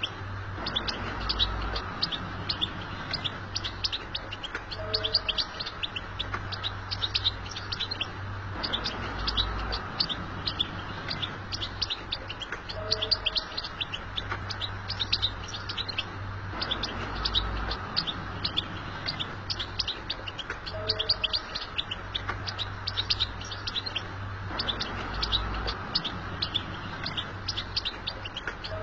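European goldfinch singing: a fast, continuous twitter of short high chirps, the same pattern coming round about every eight seconds.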